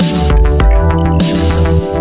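Electronic background music with a steady beat and deep bass.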